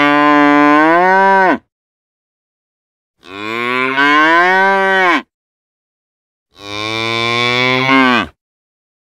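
Cattle mooing: three long moos of about two seconds each, evenly spaced with complete silence between them, each falling in pitch as it ends.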